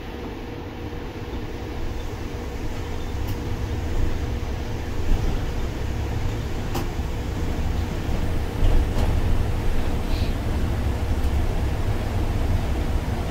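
Inside an MAN Lion's City articulated bus with a biogas engine, pulling away from a stop: a deep engine and road rumble grows louder over the first few seconds as the bus picks up speed, then runs steadily. A steady hum and a few small rattles and clicks from the cabin are heard along with it.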